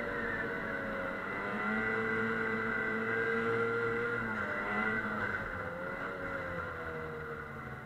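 Snowmobile engine running under way, its pitch rising and falling with the throttle: up about two seconds in, a dip and rise near five seconds, then easing off toward the end.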